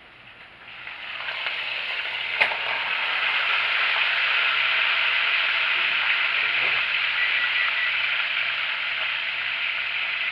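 Pesto-coated roast chicken sizzling in hot oil and pan juices in a stainless steel skillet just out of a hot oven. The sizzle rises about a second in and then holds steady. There is one sharp metal knock a couple of seconds in.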